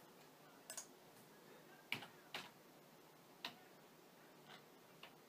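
Near silence broken by a handful of faint, sharp clicks at uneven intervals.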